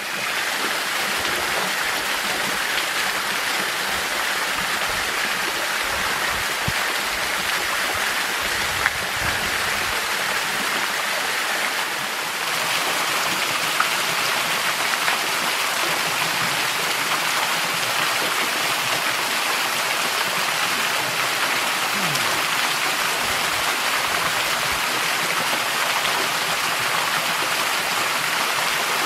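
Small mountain waterfall pouring down a rock face into a pool: a steady rush of falling and splashing water, a little louder from about twelve seconds in.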